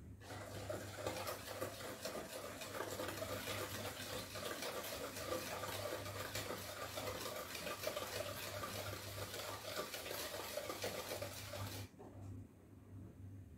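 Stainless wire whisk beating creamed butter, sugar and egg by hand in a mixing bowl: a fast, even scraping and clicking of the wires against the bowl, which stops abruptly about twelve seconds in.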